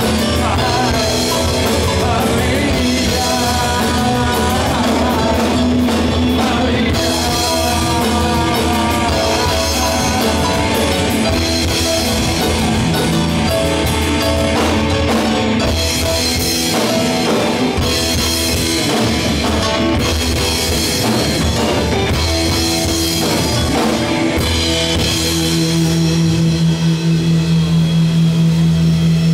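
Live progressive rock band playing: Yamaha Motif synthesizer, electric bass and drum kit. Near the end a steady low held note comes in and the sound pulses in a fast rhythm.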